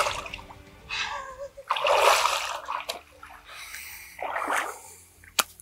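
Lake water splashing as hands move in the shallows, in three short bursts, with a sharp click near the end.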